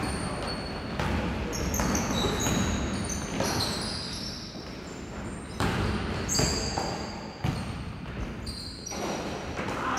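Basketball game on a wooden gym court: the ball bouncing with a few sharp impacts, and sneakers squeaking in short clusters of high squeals as players run and cut.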